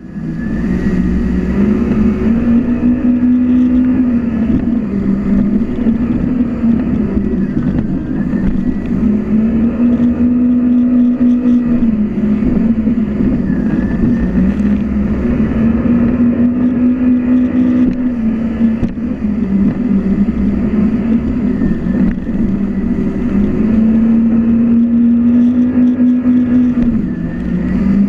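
Jet ski engine running hard, its note rising and falling several times as the throttle is opened and eased, with a steady rushing noise underneath.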